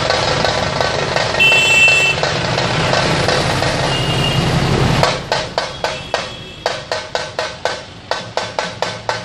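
A troupe of large barrel-shaped dhol drums, first played as a dense continuous roll, with a brief shrill steady tone over it about one and a half seconds in. About five seconds in the roll gives way to sharp separate strokes, about three a second.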